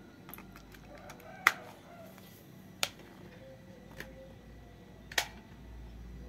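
Sharp plastic clicks and knocks as an AA battery is handled and pressed into a toy's plastic battery compartment: four distinct clicks, the loudest about one and a half seconds in, with a few lighter ticks before it.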